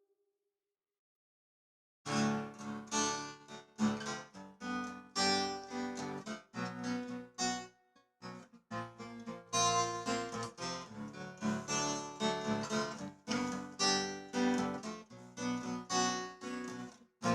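Silence for about two seconds, then an acoustic guitar playing an instrumental intro: plucked notes and chords with short gaps between phrases.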